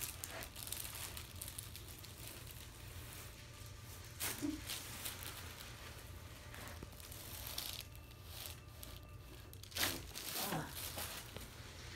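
Soft rustling and crinkling of cloth and the patient shifting on a chiropractic treatment table, with two brief louder rustles about four and ten seconds in.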